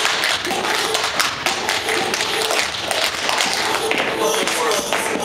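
Tap shoes striking a stage floor in quick, dense bursts of taps from a group of tap dancers dancing together. Music plays underneath, coming through more clearly near the end.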